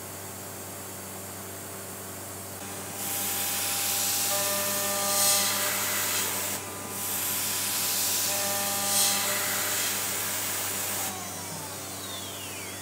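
A 6 mm three-flute end mill in a CNC router spindle at 12,000 rpm side-milling an aluminium block. The cut is a loud hiss with steady whining tones, starting about three seconds in, breaking briefly near the middle and stopping a little before the end. After it comes a falling whine over the steady hum of the running machine.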